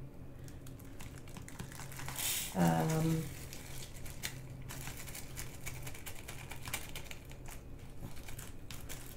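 Many small, light clicks with some crinkling: diamond-painting resin drills and small plastic bags being handled while the kit is sorted into baggies. A short vocal sound comes about three seconds in.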